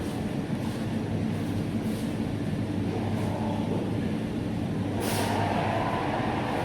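Steady low mechanical hum. About five seconds in, a rushing hiss joins it.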